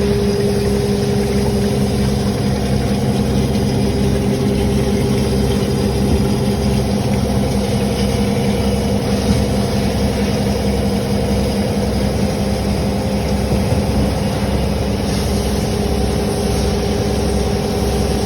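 CNC machine running with a steady, unchanging hum.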